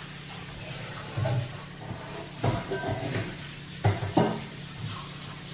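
Dishes being washed at a kitchen sink: water running from the tap while metal pots and bowls knock and clank against each other and the sink, several clanks in a cluster through the middle.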